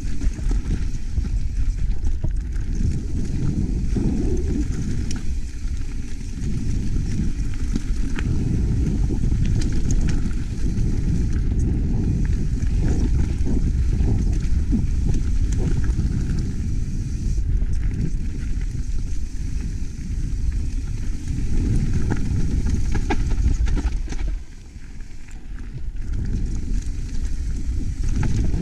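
Mountain bike rattling and knocking over rough dirt trail at speed, with wind rumbling on the microphone and many sharp clicks from the bike. The noise drops off briefly a few seconds before the end.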